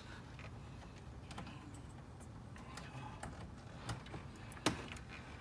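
Scattered light plastic clicks and taps as a wiring connector and its retaining tab are worked loose by hand from the radiator cooling-fan shroud, with one sharper click near the end.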